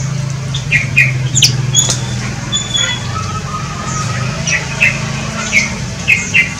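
Birds in an aviary, among them bulbuls, giving short repeated chirps and calls, with a couple of brief whistled notes in the middle, over a steady low hum.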